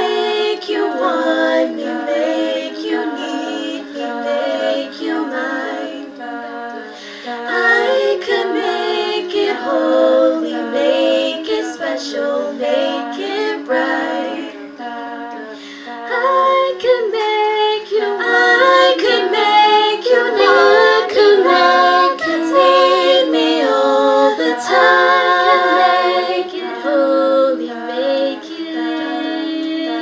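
All-female a cappella group singing live into microphones, in close harmony: the backing voices hold a steady low chord under a moving lead melody. The singing grows louder about halfway through.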